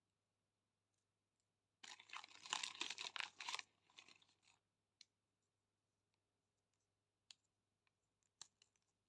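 Crackling and tearing of a candy wrapper being opened for a few seconds, followed by a few light clicks and taps of the packaging.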